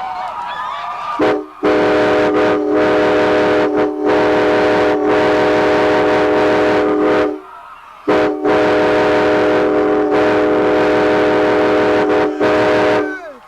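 Nathan Airchime K5LA five-chime locomotive air horn, mounted on a pickup truck, sounding its chord in two long blasts. The first starts about a second in, with a few brief breaks, and stops about seven seconds in. The second starts a second later and cuts off near the end.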